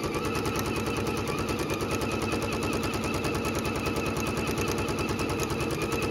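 Electric sewing machine running at a steady speed, its needle stitching through fabric in a rapid, even rhythm.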